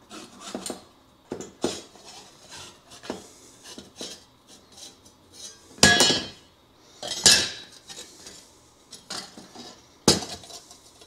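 Thin 14-gauge plasma-cut steel plate pieces of a slot-together flat-pack Christmas tree clinking and scraping against each other as they are pulled apart and handled. Three louder ringing clanks come at about six, seven and ten seconds in.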